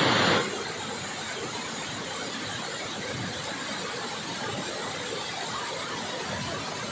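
Steady rushing noise of a large waterfall's falling water. It is louder for about the first half second, then settles to an even lower level.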